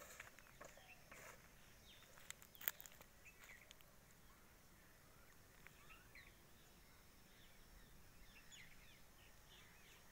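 Near silence: faint, scattered bird chirps, with a few clicks in the first three seconds, one of them sharp.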